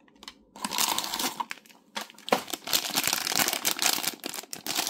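Plastic packaging crinkling and rustling as a boxed toy figure is unwrapped by hand, in two bouts: a shorter one about half a second in, then a longer, louder one from about two and a half seconds.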